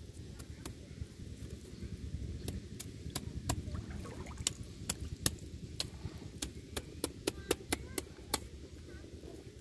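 Split-bamboo darki fish trap being shaken and knocked to empty the catch: irregular sharp taps and clicks, coming more and more often until near the end, over a low steady rumble.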